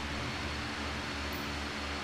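Steady hum and hiss of electric fans running, with a low throb pulsing a few times a second.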